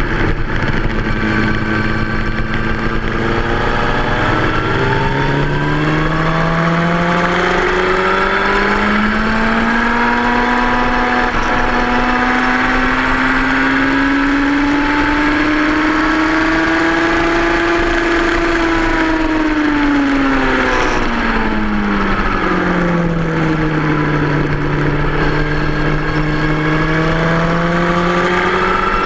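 2003 Yamaha R1's inline-four engine running hard on track. Its pitch climbs slowly from about five seconds in, falls away around twenty seconds in, then climbs again near the end.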